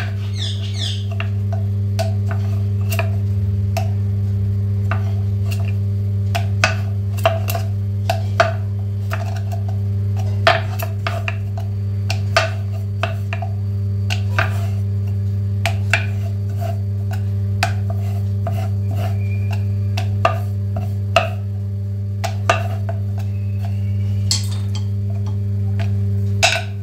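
Wooden rolling pin rolling out puri dough on a wooden board, with irregular light clicks and knocks as the pin and hands work the board, over a steady low hum.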